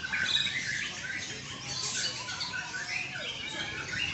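Many songbirds singing at once: a dense stream of short, overlapping high chirps and trills.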